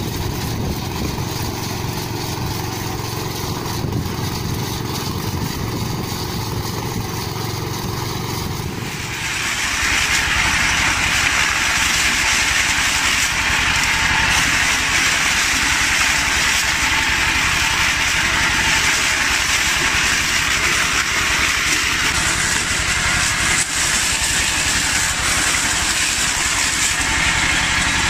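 Small single-cylinder engine of a walk-behind corn cultivator running steadily. About nine seconds in it gives way to a louder corn harvester at work, a dense hissing clatter as dry corn stalks and cobs are fed through its machinery over the running engine.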